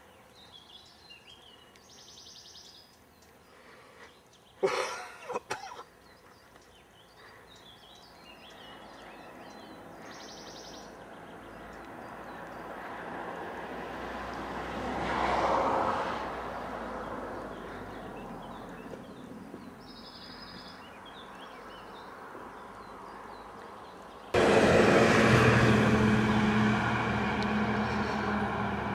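Outdoor rural ambience with a few high bird chirps and a vehicle passing on the road, growing louder to a peak about halfway through and then fading. There is a brief loud knock about five seconds in. Near the end a much louder steady rushing noise with a low hum starts suddenly.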